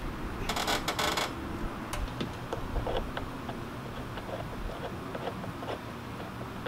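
Plastic and metal clicks and knocks of a replacement door mirror on a 2019 Ford Transit being seated against the door, with a short rattling burst about half a second in and scattered light clicks after it.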